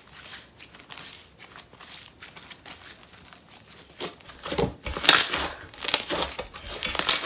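Clear-based icy snow fizz slime being played with by hand, crackling. Faint at first, it gets louder from about four and a half seconds in.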